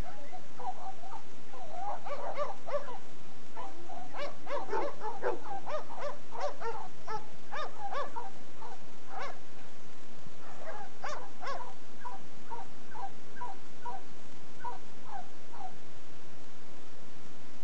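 Dogs barking and yipping in many short, high calls. The calls come thickest in the first half and again about two-thirds in, then thin to scattered single yips near the end.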